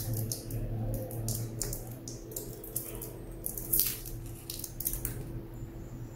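Scratchy crackling and scraping as yellow insulating tape is picked and peeled off a lithium-polymer battery cell's tab with metal tweezers, in short, irregular scrapes.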